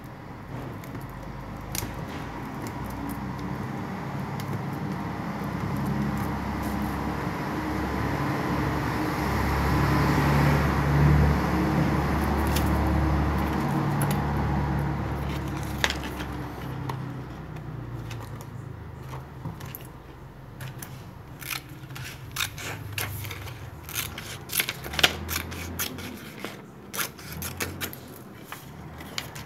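Enamelled copper wire coils being handled and pressed into the slots of an electric motor stator: scattered light clicks and rustles, growing thicker in the second half. Under the first half, a low rumble swells and fades over about fifteen seconds.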